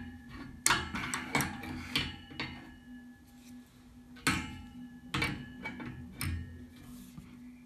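Steel spanners clicking and knocking against a chrome radiator valve and its back nut as the nut is tightened, the two spanners working against each other. About a dozen sharp metallic clinks, some with a short ring, bunched in the first two and a half seconds and again from about four to six and a half seconds in.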